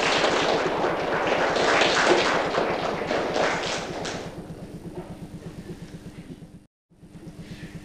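Audience applauding, dying away about four seconds in. A low steady hum is left, with the sound cutting out briefly near the end.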